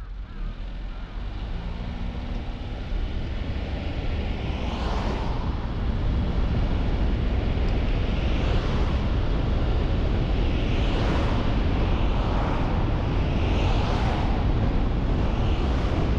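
Car on the move and picking up speed: engine and road rumble grow louder over the first several seconds, then hold as a steady rush. The rush swells several times, with wind on the microphone.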